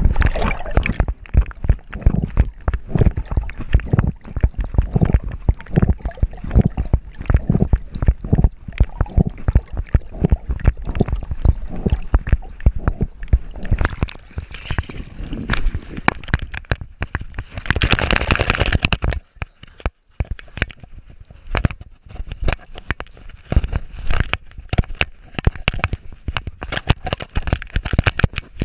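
Pool water sloshing and gurgling around a camera strapped to a swimming dog, with rapid, uneven knocks as the dog paddles and the camera dips in and out of the surface. About two-thirds of the way through there is a brief, brighter splash.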